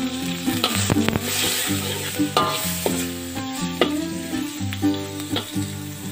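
Aromatics with a spice paste and lemongrass sautéing in hot oil in a steel wok: a steady sizzle, with a metal spatula stirring and knocking against the wok every second or so.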